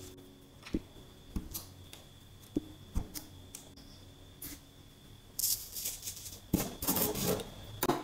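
Coloured sand poured from a plastic spoon onto sticker paper: a grainy rattling hiss in two bursts in the second half, after a few light taps.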